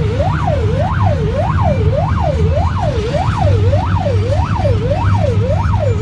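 Electronic siren wailing up and down over and over, a little under two sweeps a second, over a steady low hum of engine and road noise.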